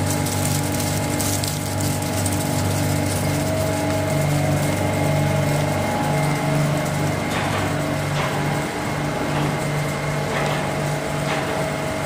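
Flake ice machine running: its GEA Bock piston compressor and air-cooled condenser fans give a steady mechanical hum with a low drone that pulses gently. A few light clicks come in the second half.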